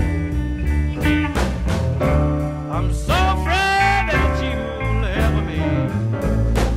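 Electric Chicago blues band playing an instrumental passage: electric guitars, piano, bass and drum kit, with a lead line of bending notes.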